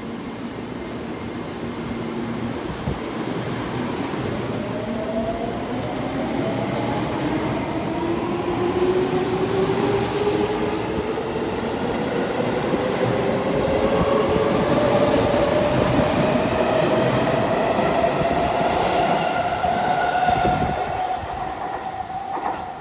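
Seibu 20000 series electric commuter train accelerating away from a station platform. Its IGBT VVVF inverter and traction motors give a whine of several tones climbing steadily in pitch over the rumble of the wheels. The sound grows loudest as the cars pass and fades near the end as the train pulls away.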